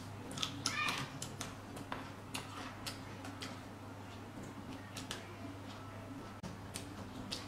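A person chewing a mouthful of chopped raw fish paste with fresh vegetables: wet mouth clicks and smacks come irregularly throughout, over a steady low hum.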